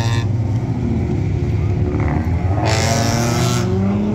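Car engine running steadily at low revs, a deep, even drone, with a brighter, louder burst lasting about a second past the middle.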